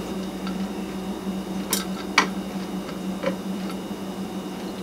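A few sharp, irregular clicks and light taps as a 3D-printed gear-and-pinion test rig is handled, over a steady low hum.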